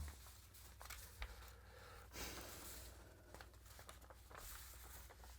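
Near silence: room tone with a few faint rustles and ticks.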